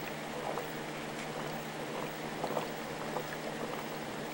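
Water bubbling and gurgling in an aquarium tank, with scattered small ticks over a steady hiss and an electrical hum.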